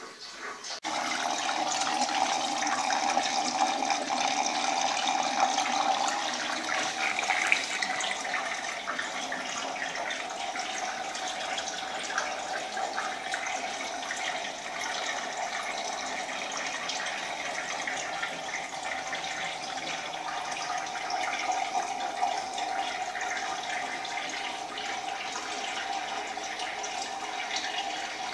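Water from a PVC T-pipe pouring and splashing into a glass tank, fed by an aquaponics system's pump: a steady rushing that starts suddenly about a second in.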